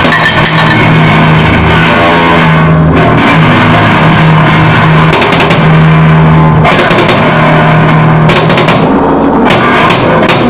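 Harsh noise music: a very loud, distorted wall of noise over a steady low drone. The drone drops out and comes back, and the noise cuts abruptly several times.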